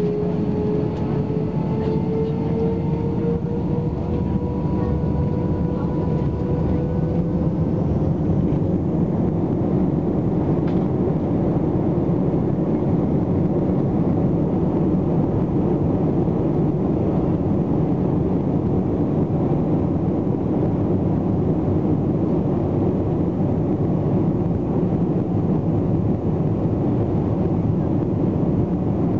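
Airbus A321's jet engines spooling up for takeoff, heard from inside the cabin: a whine climbs slowly in pitch over the first several seconds, then merges into a steady, heavy rush of engine and rolling noise as the airliner accelerates down the runway.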